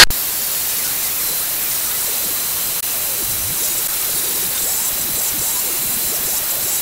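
Wet-and-dry vacuum cleaner running steadily, a constant rushing hiss with a faint high whine, its hose sucking up leak water from the bottom of a narrowboat's engine bay.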